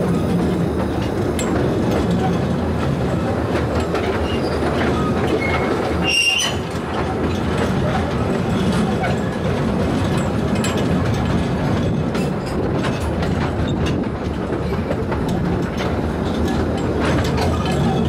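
Taipingshan forest railway 'bong bong' train running steadily along its narrow-gauge track, heard from on board, with a brief high squeal about six seconds in.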